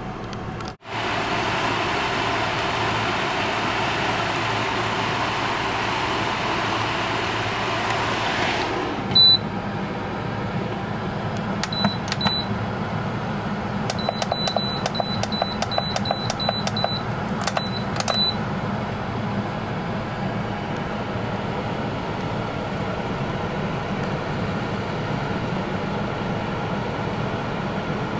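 German Pool halogen cooking pot running with its fan whirring. The fan stops at a single beep about nine seconds in, as the cooking time runs out. Its control panel then gives a run of short beeps from about twelve seconds on, as the + button is pressed to add more time.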